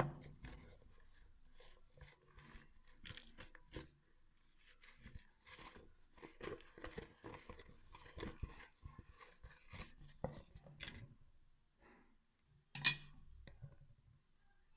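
Hands squeezing and kneading a sticky, wet flour-and-water dough: a run of irregular crackly squishes that stops about three quarters of the way through. A single sharp knock follows near the end.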